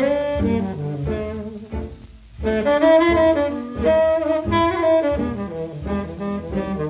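Background jazz: a saxophone plays the melody over a double bass, dipping briefly about two seconds in before coming back louder.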